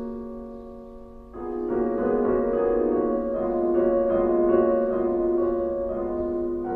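Background music led by piano: a held chord fades away, then a new chord comes in about a second and a half in and the slow melody carries on.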